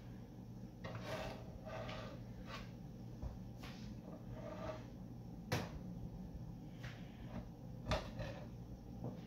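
Metal spatula clacking and scraping against an electric griddle's nonstick surface: a series of short knocks, two louder clacks past the middle and near the end, over a low steady hum.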